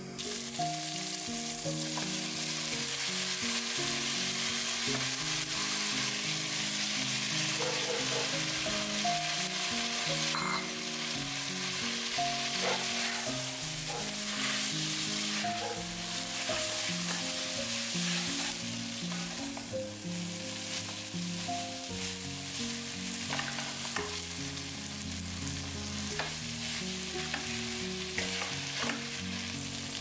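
Chicken noodles with strips of red and green pepper sizzling in a hot pot, stirred and tossed with a wooden spatula, with scattered clicks and scrapes of the spatula against the pot.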